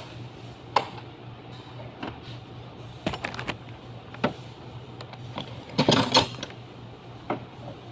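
Metal tools and loose parts clicking and clinking as they are handled, with a few separate knocks and a quick flurry of ringing clinks about six seconds in. A steady low hum runs underneath.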